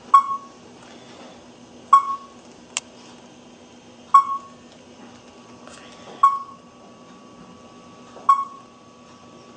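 Stylus tapping the buttons on a G-Scan 2 scan tool's touchscreen, five times about two seconds apart, each tap answered by a short beep from the tool, with one extra sharp click in between. A steady low hum runs underneath.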